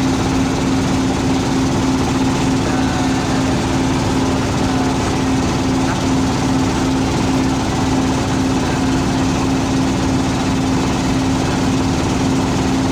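Wooden river boat's engine running steadily under way: an unbroken, even drone with a strong low hum.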